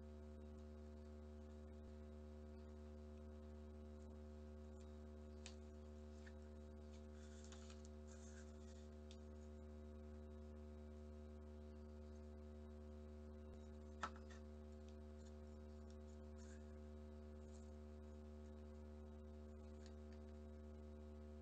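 Near silence: a steady low hum with faint rustles of paper being folded and creased by hand, and one sharp click about two-thirds of the way through.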